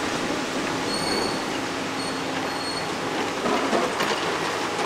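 Steady rumble of street and site machinery noise, with short high-pitched metallic squeals of tram wheels on the rails about a second in and again near the middle.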